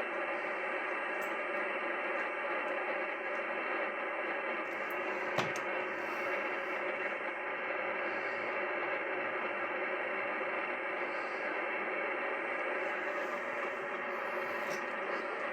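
Steady hiss of radio receiver static from the Yaesu FT-102, dull and without highs, with one sharp click about five seconds in.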